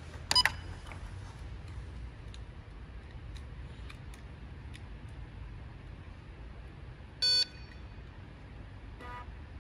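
Electronic beeps from a Carrera Digital 132 slot-car Control Unit: a short beep about half a second in, a longer one about seven seconds in, and a faint one near the end, over a low steady hum.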